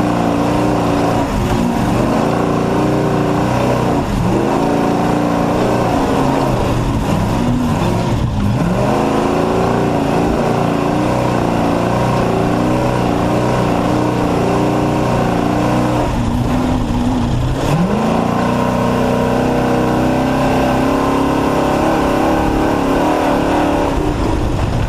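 Off-road race truck's engine running hard under load, its pitch dropping briefly about 1.5, 4 and 8 seconds in and again in a longer dip around 16 seconds before climbing back up, as the throttle is lifted and reapplied. A constant rumble of driving noise runs underneath.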